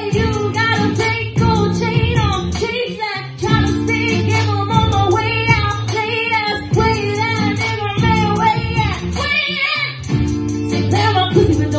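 Woman singing live into a handheld microphone over a repeating backing loop from a Boss RC-30 looper pedal, with a low bass pattern and sharp high percussive clicks.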